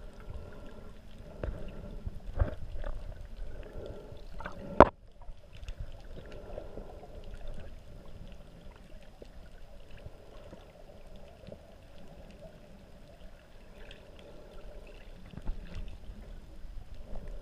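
Muffled underwater sound through a GoPro's waterproof housing: water movement with scattered knocks and one sharp click about five seconds in.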